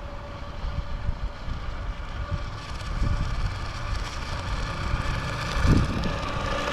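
WLtoys WL915-A brushless RC jet boat running out on the water, a thin steady whine that grows louder about a third of the way in, with wind rumbling on the microphone and a low thump near the end.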